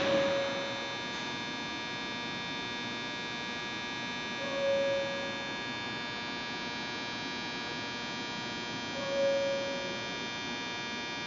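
Steady electrical hum made of many fixed tones from a stationary Osaka Monorail 1000 series train and its platform. A short beep sounds three times, about every four and a half seconds.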